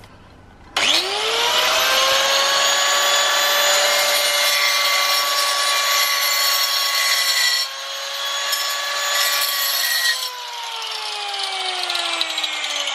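Hand-held angle grinder with a diamond cutting disc starting up about a second in and spinning up to a steady high whine, then cutting part-way into a brick slip for a couple of seconds, its note dipping slightly under the load. Near ten seconds it is switched off and winds down with a long falling whine.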